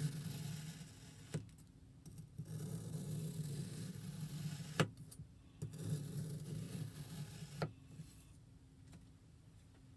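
A knife slicing slowly down through a block of kinetic sand three times, each cut a grainy rasp of a second or two that ends in a sharp click as the blade reaches the surface underneath. The first cut ends about a second in, and the last near the end.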